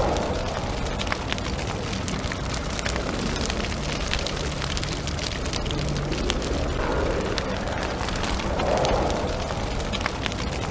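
A steady low rumbling noise with many scattered crackles and a few soft swells, like a dark ambient sound bed.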